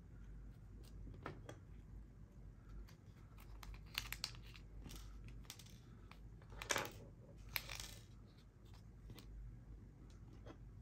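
Faint handling noises from a transparent Apple Watch case being worked by hand: scattered small clicks and taps, with short bursts of crinkling about four seconds in and again around seven to eight seconds in.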